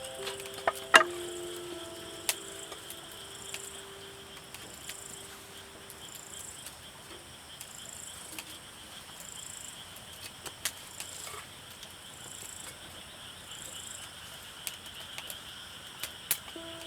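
Insects chirring steadily in the night, with a faint higher chirp pulsing about once a second. A campfire gives a few sharp crackles and pops.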